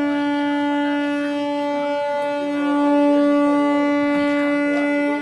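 Indian Railways locomotive horn sounding one long steady blast, with a brief dip about two seconds in, stopping near the end. It is the horn required at a 'W/L' whistle board, warning of a level crossing ahead.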